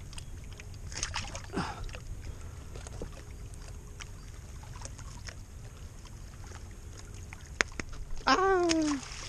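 Steady low wind rumble on the microphone with light water lapping and a few small knocks, then about eight seconds in a man's voice calls out once, falling in pitch.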